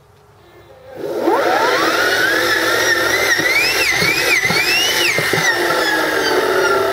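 Military starter/generator DC motor, run unloaded by a Kelly SepEx controller, spinning up from rest about a second in with a rising whine. Its pitch wavers up and down a few times as the speed is varied, then slowly falls as it slows.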